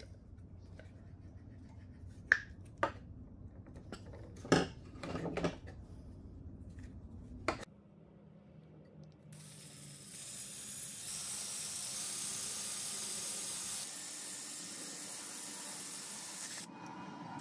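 A few sharp clicks and taps as small plastic parts and a hand tool are handled, then a cordless drill with a spade bit boring into a plastic cap: a steady rasping hiss for about six seconds that drops off near the end.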